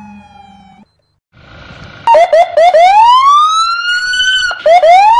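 Police car siren: about two seconds in it starts with a few quick chirps, then a long rising wail that cuts back and begins again with two more chirps and another rise. It is loud.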